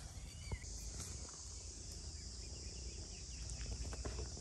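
A steady, high insect chorus that grows louder about half a second in, over a low rumble and a few faint clicks.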